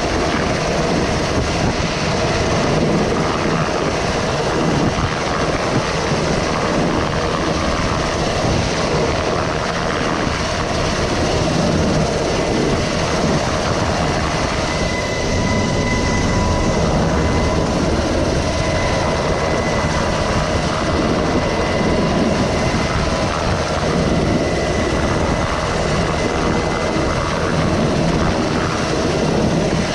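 Helicopter running loud and steady through a hoist rescue, a continuous rotor and turbine noise. A faint steady whine joins it about halfway through for several seconds.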